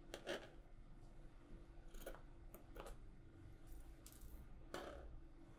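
Fabric scissors snipping notches into folded cloth: a few quiet, short, separate snips.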